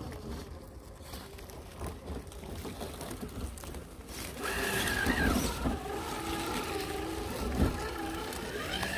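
Scale RC crawler's Hobbywing Fusion 1800kv brushless motor and drivetrain whining as it crawls, starting about halfway through and shifting in pitch with the throttle. There is a single knock near the end.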